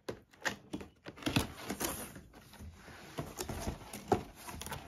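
Cardboard box being opened by hand: tape pulled off the lid and the flaps folded back, a run of small scrapes, rustles and clicks with a sharper knock about four seconds in.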